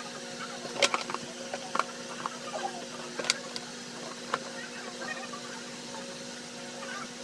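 Cardboard and paper being handled on a tabletop: a few sharp light taps and knocks, over a steady electrical-sounding hum.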